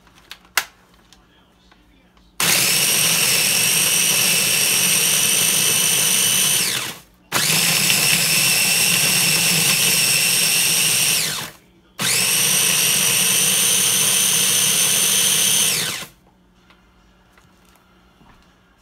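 Cuisinart Mini-Prep Plus 4-cup food processor crushing Oreo cookies into crumbs, run in three pulses of about four seconds each. The motor whines steadily and falls in pitch as it winds down at the end of each pulse. A few sharp clicks come before the first run.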